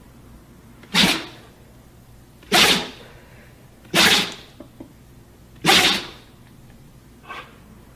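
A dog sneezing: four sharp, sudden sneezes about a second and a half apart, followed by a fainter, shorter one near the end.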